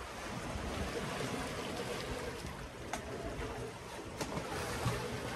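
Sea water rushing and splashing past the stern of a sailing catamaran under way, a steady wash with a couple of faint clicks.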